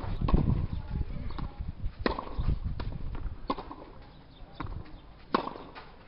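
Tennis ball pops from racket strikes and bounces on a clay court: a series of sharp knocks about a second apart, the loudest about two seconds in and again a little after five seconds.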